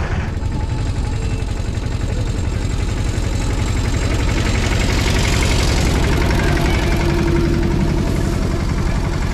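Farm tractor's diesel engine running steadily under load while it pulls a tine cultivator through dry soil, a loud, even rumble.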